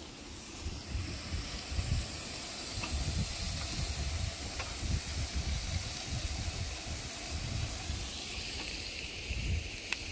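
Pork belly sizzling on a portable gas grill, a steady hiss, with wind buffeting the microphone in low gusts.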